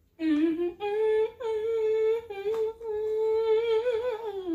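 A person humming a wordless tune: a run of held notes with short breaks between them, sliding down in pitch at the end.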